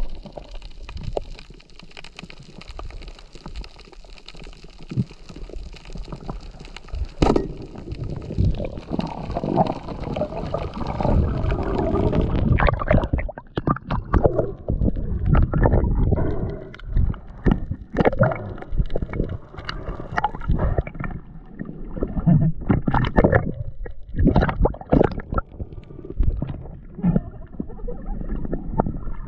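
Muffled underwater sound picked up by a diving camera: water gurgling and rushing past the housing. About twelve seconds in it turns louder, with many irregular knocks and clicks as gloved hands handle gear close to the camera.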